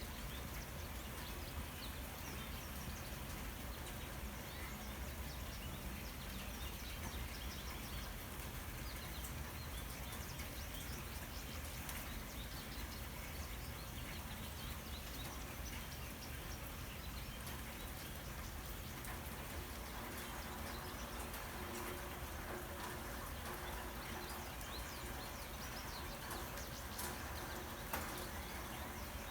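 Faint, steady outdoor background noise with scattered small chirps and ticks, typical of birds in the distance.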